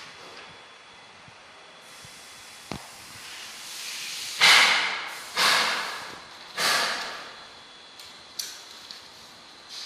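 A sheet of paper rustling as it is handled and flexed: a light click, then a few short swishes, the first and loudest about four and a half seconds in.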